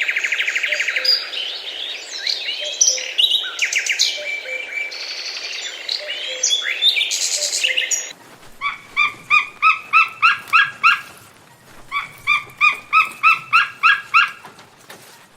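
Birds singing, several at once, with fast trills and whistles. About halfway through this gives way to one repeated call of about three notes a second, in runs of a few seconds with short pauses between.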